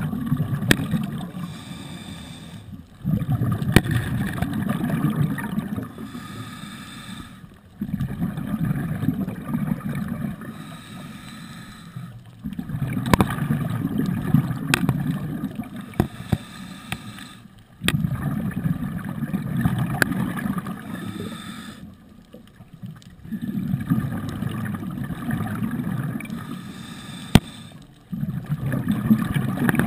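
Scuba diver breathing through a regulator underwater, about six slow breaths. Each is a few-second burst of exhaled bubbles, with a quieter gap between for the inhale, and scattered sharp clicks throughout.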